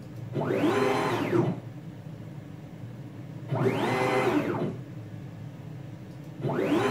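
NEMA-34 stepper motors driving a CNC router's Y-axis gantry in rapid moves at 1200 inches per minute, the fastest the axis ran without losing steps. Each move is a whine about a second long that rises in pitch as it speeds up, holds, and falls as it slows. Two moves, a third starting near the end, with a steady low hum between them.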